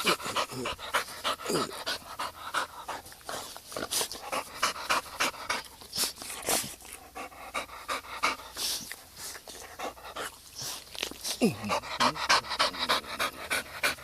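A dog panting rapidly, breath after breath.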